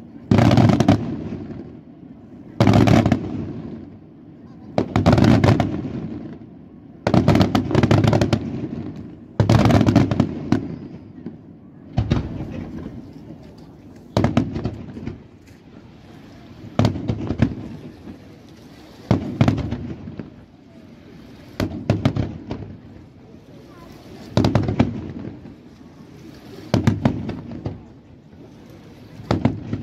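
Aerial firework shells bursting one after another in a display, a heavy boom about every two and a half seconds, each trailing off in a rolling rumble. The bangs are loudest in the first half.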